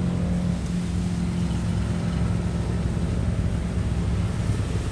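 Steady low rumble of a running engine, with a hum that fades out about half a second in.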